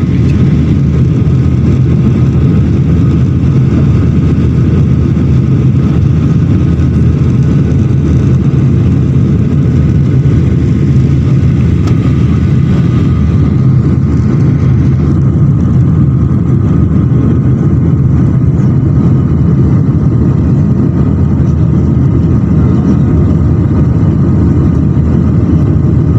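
Jet airliner cabin noise in the climb after takeoff: the engines and rushing air make a loud, steady low rumble with a faint steady whine above it. The higher hiss thins out about halfway through.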